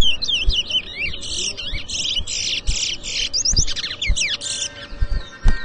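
Towa-towa seed finches singing in a bird-singing race: rapid, dense runs of chirped and sweeping notes, phrase after phrase, each finished song counting toward the bird's tally. Occasional low thuds sound underneath.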